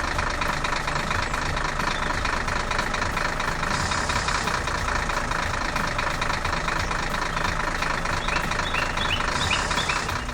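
A heavy farm machine's engine running steadily, with a fast even knocking rhythm. A few short high chirps come near the end.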